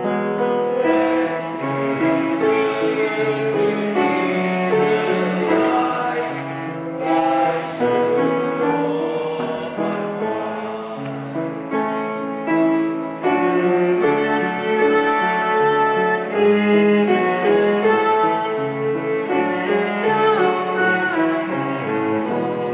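A small group of young voices singing together with a cello accompanying them.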